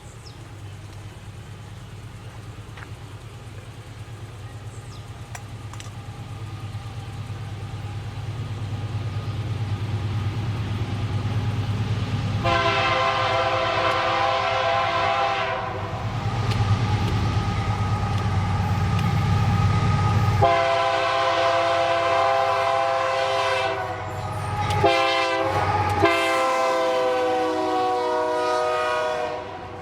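Diesel freight locomotive approaching, its engine rumble building steadily, then sounding its multi-tone air horn in several long blasts, starting about halfway through.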